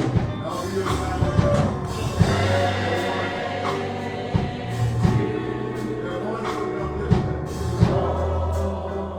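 Gospel choir and congregation singing with instrumental accompaniment and drum hits, a hymn sung during the invitation at the end of a church service.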